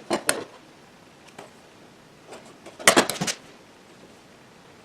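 Short knocks and clatter of wooden jig pieces being handled and set down on a workbench: two near the start and a quick cluster about three seconds in.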